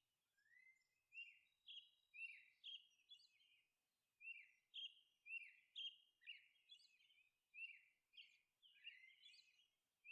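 Faint bird chirping: a string of short, high chirps, many sweeping downward, repeating about twice a second.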